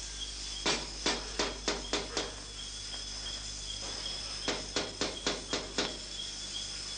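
Crickets chirping steadily, with two quick runs of about six sharp knocks each, about four a second. The first run comes about a second in, the second about four and a half seconds in.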